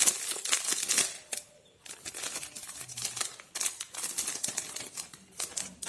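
Party decoration pieces and their plastic packaging being handled: irregular light clicks and rustles, with a short lull about a second and a half in.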